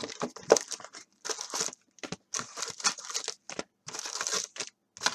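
Trading-card packs and their box being handled and pulled out, a run of irregular crinkles and rustles of the pack wrappers.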